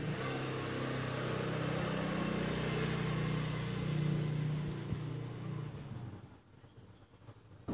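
A motor running with a steady low hum and a hiss, dying away about six seconds in.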